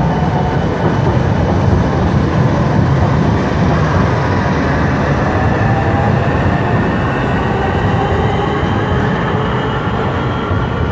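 Class 465 Networker electric multiple unit pulling out of the station: a steady rumble of wheels on the rails, with the traction motors' whine slowly rising in pitch as it picks up speed, easing slightly near the end as the last coach goes by.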